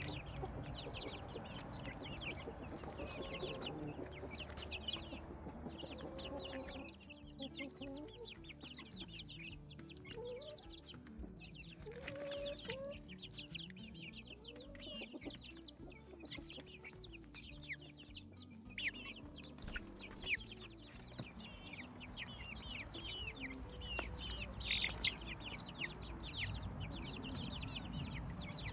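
A flock of backyard chicks peeping without pause: many short, high, falling cheeps overlapping, with lower clucking calls beneath.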